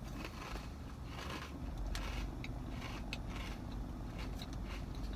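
A mouthful of Crunchy Cheetos being chewed, with scattered soft crunches.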